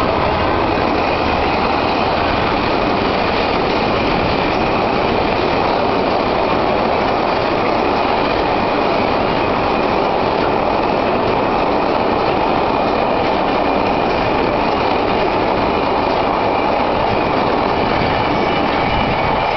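Freight train of clay wagons behind a Class 66 diesel locomotive passing close by: a steady loud rumble and rattle of the wagons' wheels on the rails, keeping up until the last wagon clears.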